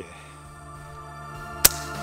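Background music with a steady tone that slowly grows louder, and one sharp shot from an FX Impact PCP air rifle about one and a half seconds in. The rifle is set to low power, about 750 feet per second.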